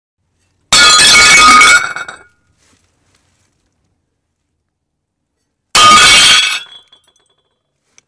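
Plates smashing twice, a few seconds apart: each a loud crash of shattering with clinking pieces dying away over a second or so.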